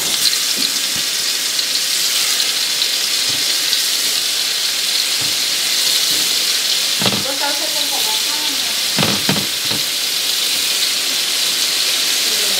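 Scallops sizzling in hot butter and olive oil in a frying pan, a steady high hiss as they are laid into the pan one by one.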